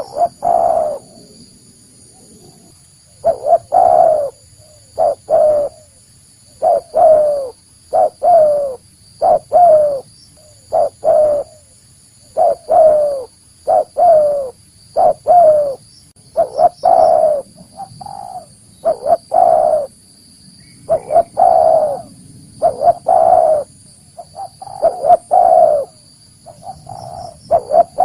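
Spotted doves (tekukur) cooing: short coo notes, each sliding slightly down in pitch, repeated again and again in uneven phrases. This is the call played as a lure to draw wild spotted doves in.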